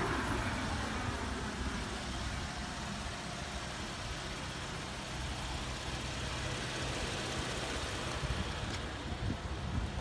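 A motor vehicle's engine running steadily, a low hum.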